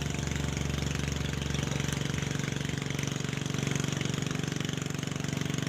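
Boat engine running steadily with a fast, even firing beat.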